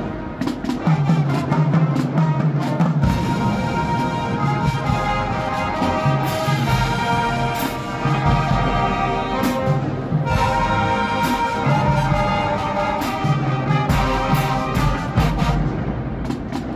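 Marching band playing: brass chords over a sousaphone bass line, punctuated by drum hits from the percussion section.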